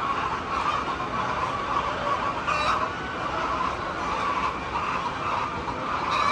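A flock of hens clucking over a steady background noise, with brief louder calls about two and a half seconds in and again near the end.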